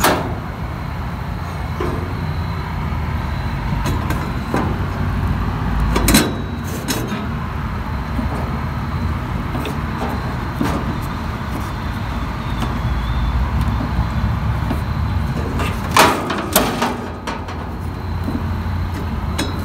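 Steady low rumble with a few sharp knocks and clicks as the metal grille and wick adjustment knob of a vintage Sunbeam kerosene heater are handled and the knob is turned down toward off.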